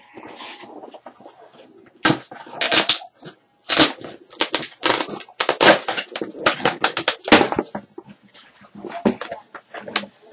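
Cardboard shipping box being opened and handled by hand: a run of irregular scraping, tearing and rustling sounds, thickest from about two seconds in until near the end.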